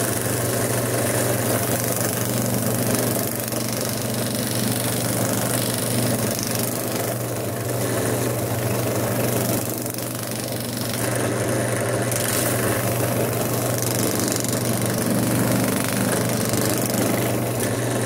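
Bench drill press running steadily with a sanding drum in the chuck: a constant motor hum under the hiss of a wooden slingshot fork being sanded against the spinning drum.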